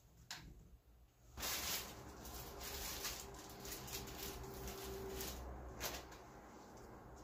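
Plastic bag rustling and crinkling for about four and a half seconds as a bagged loaf of sliced bread is handled. A sharp knock comes just after the start and another near the end as items are set down on a wooden floor.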